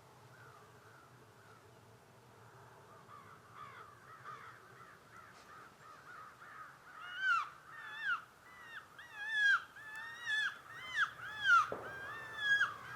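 Predator mouth call blown in a string of short, wavering distress cries to lure coyotes. The cries start faint a few seconds in and build to loud cries about one to two a second.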